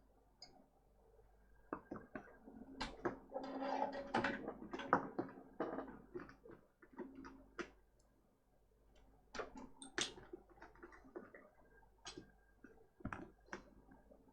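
Scattered clicks, taps and light rustling of small objects being handled on a workbench, busiest from about three to six seconds in, over a faint steady hum.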